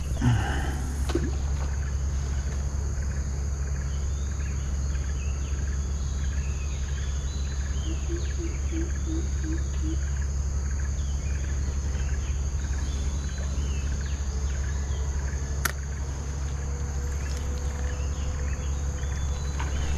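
Riverbank ambience: a steady high insect drone with many short bird calls, and a brief run of low hooting notes about eight seconds in, over a steady low rumble. There is a single sharp click a little before the end.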